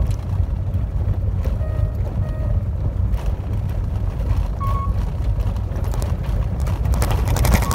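Car driving on a gravel road, heard from inside the cabin: a steady low rumble of tyres on loose gravel. A dense clatter of stones builds near the end, and a few short high-pitched tones sound over it.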